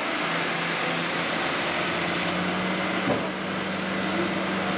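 Crawler bulldozer's diesel engine running steadily under load as it pushes a semi truck stuck in the mud, with one brief knock about three seconds in.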